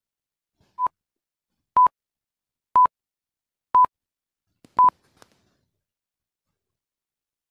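Five short electronic beeps at one steady pitch, one a second: a quiz countdown timer ticking off the five seconds given to answer.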